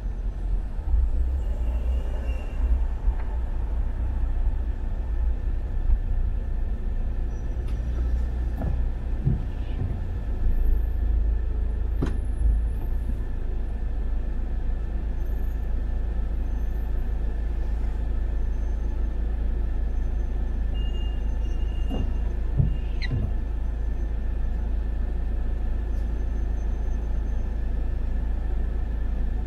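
Steady low rumble of a car in slow, stop-and-go city traffic, heard from inside the cabin, with a few faint clicks and knocks.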